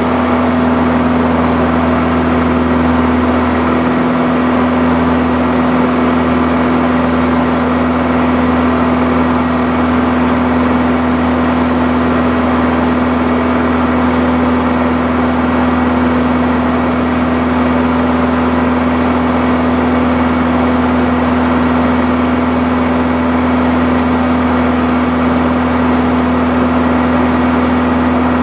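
Morane-Saulnier MS.880B Rallye's four-cylinder piston engine and propeller running steadily at take-off power through rotation and the initial climb, heard from inside the cockpit as a loud even drone with air rushing through the cabin.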